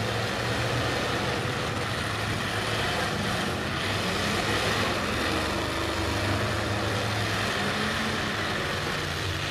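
Several demolition derby cars' engines running at once, a steady mechanical din with no distinct crash.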